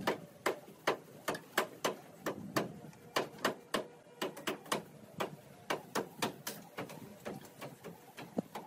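Rapid, uneven chopping strikes of a hand blade hacking at overgrowth on a concrete rooftop, about three sharp knocks a second.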